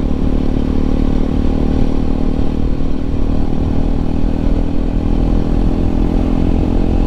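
Bajaj Pulsar RS 200's fuel-injected single-cylinder engine running under way, holding a steady engine speed.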